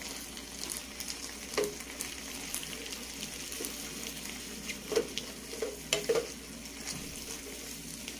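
Chicken strips, onion and diced bell peppers sizzling in a hot skillet as a wooden spoon stirs them, a steady frying hiss. A few louder knocks of the spoon on the pan come about a second and a half in and again around five to six seconds in.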